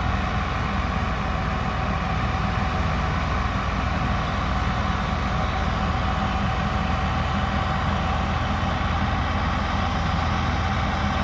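Fiat 640 tractor's diesel engine running steadily under load, driving a wheat thresher as it threshes wheat. The thresher adds a steady whine on top of the engine's even drone.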